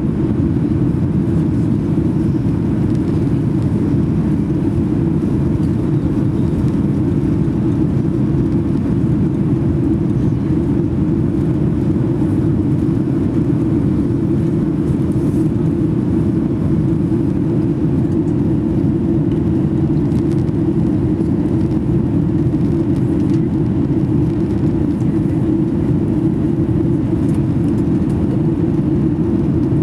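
Steady, loud, deep rumble of engine and airflow noise inside the passenger cabin of a Boeing 737 with CFM LEAP-1B engines, climbing out after takeoff.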